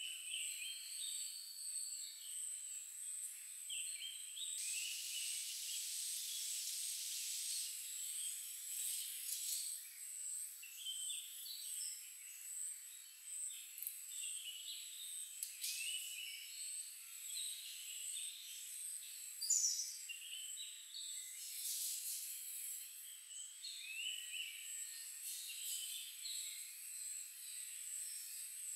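Forest ambience: a steady, high-pitched insect whine with many short bird chirps scattered through it. A hissing insect buzz swells for a few seconds near the start, and one sharper, louder chirp comes about two-thirds of the way in.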